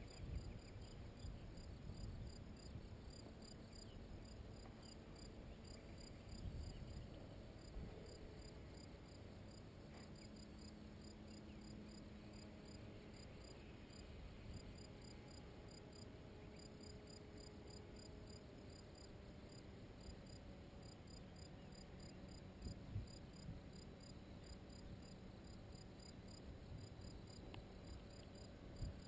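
Faint crickets chirping in a fast, even, repeating rhythm, with low wind rumble on the microphone and a faint steady low hum.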